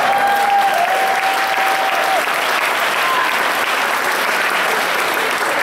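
Audience applauding steadily, with one long held cheer over the first two seconds.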